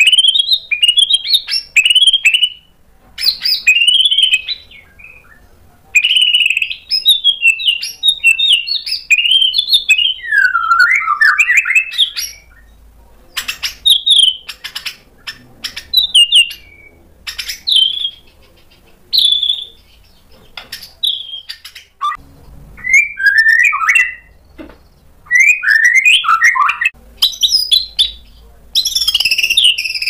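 Male white-rumped shama singing loudly in bursts of varied phrases: clear whistles, quick chirps and a falling warble about ten seconds in, broken by short pauses. The song turns dense and continuous near the end.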